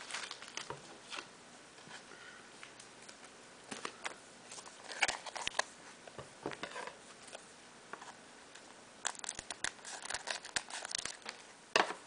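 Foil Pokémon booster pack wrapper crinkling and rustling as it is handled and opened, in scattered bursts with quieter gaps.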